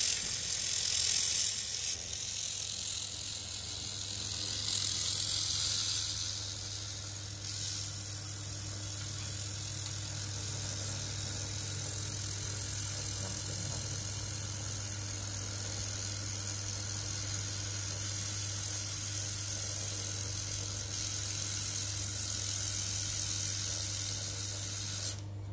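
Datyso 1000 W handheld laser welder working a weld: a steady high hiss with a low hum underneath, cutting off suddenly near the end as the weld stops.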